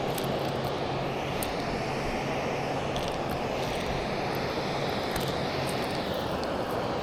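Steady rush of water pouring over a dam spillway, with scattered light ticks over it.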